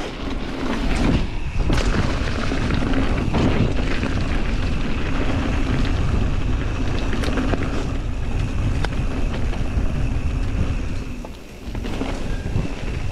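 Mountain bike ridden along a dirt trail, heard from the rider's action camera: wind buffeting the microphone over the rumble of tyres on dirt and stones, with small clicks and rattles from the bike over bumps. The noise drops briefly about eleven seconds in.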